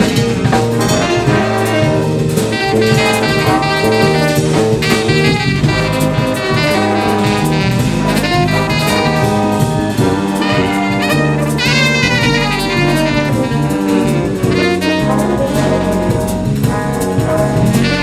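Big band playing a jazz chart in 6 with a two-over-three feel: saxophones, trumpets and trombones over drum kit, with a quick run of high notes about twelve seconds in.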